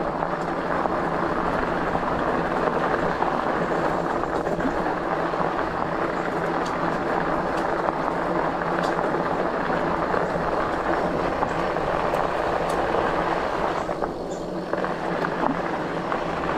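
Hovsco HovAlpha 26 fat-tire e-bike riding along a dirt trail: continuous tire and rattle noise from rolling over the ground, with a steady low hum underneath.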